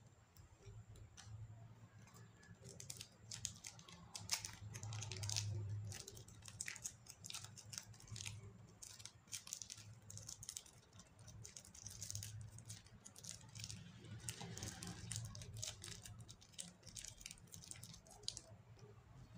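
Fluffy slime squeezed and stretched by hand, giving soft, dense crackles and small pops, starting a couple of seconds in and stopping shortly before the end.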